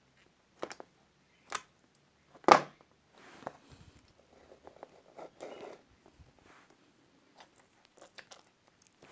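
Slime being squeezed and pressed: three sharp crunchy pops, the loudest about two and a half seconds in, then softer sticky crackling and a few small ticks.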